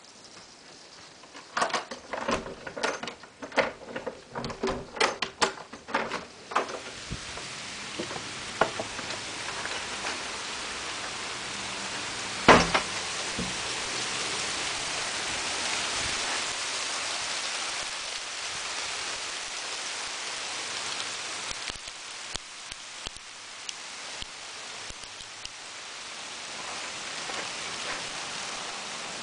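Hail falling: scattered hard knocks of hailstones striking a surface, which thicken after about seven seconds into a steady hiss of dense hail. One loud single crack comes about twelve seconds in.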